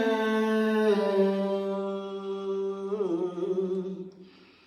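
A solo voice chanting a Vietnamese poem in the ngâm thơ style, holding the last syllable of a line as one long note that steps down in pitch, wavers, and fades out near the end.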